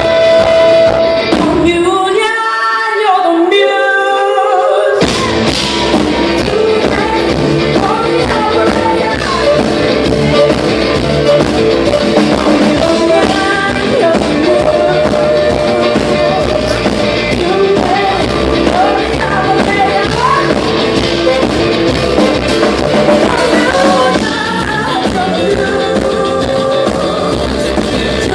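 Live rock music with a woman singing over the full band. About two seconds in, the bass and drums drop out for a few seconds, leaving mostly the voice, then the full band comes back in.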